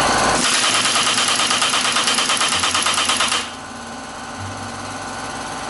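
Impact wrench hammering rapidly on the end of a hydraulic cylinder rod for about three seconds, then running on more quietly and steadily.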